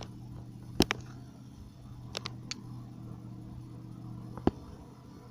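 A steady low hum from the sky, the unexplained noise taken for unseen aeroplanes or helicopters. Sharp clicks come in pairs about a second in and two seconds in, with a single one near the end.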